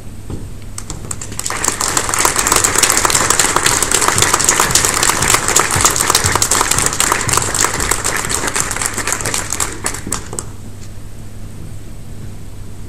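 Audience applauding: the clapping starts about a second and a half in, holds for roughly nine seconds, and dies away near the end.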